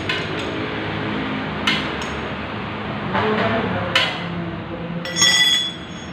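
A motorcycle's new chain and rear sprocket being turned by hand: a few sharp metallic clicks and, near the end, a short ringing clink, the loudest sound, over a steady workshop hum.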